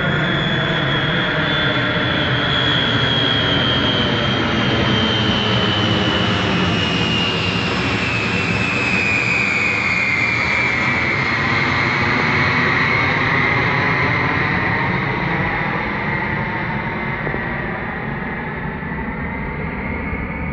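Lockheed C-5 Galaxy's four turbofan engines as the jet passes overhead: loud, steady jet noise with a high whine that slowly falls in pitch as it goes by, easing off somewhat over the last few seconds.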